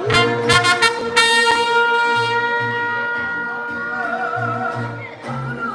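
Live mariachi music: a trumpet plays a few short notes, then holds one long note, over pulsing bass notes, while a woman sings.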